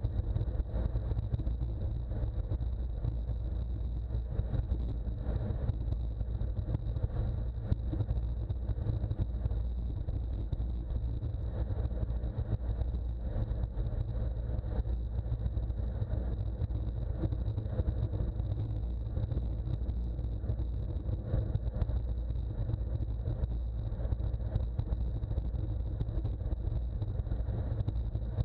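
Wind rushing over a bike-mounted action camera's microphone at about 28 mph, a steady low rumble.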